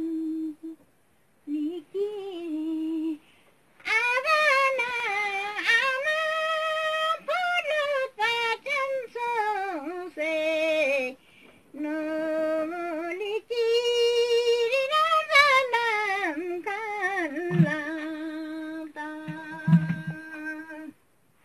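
An elderly woman singing a Ladakhi song alone, without accompaniment: phrases of long held notes with wavering ornaments, separated by short breaths. She starts low and moves to a higher, more ornamented line about four seconds in.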